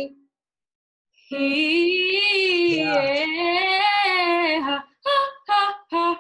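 A female voice singing a vocal exercise: after a second of quiet, one long held note with vibrato, then three short notes.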